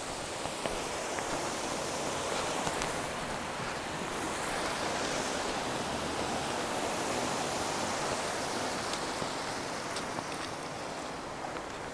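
Steady sound of stream water flowing.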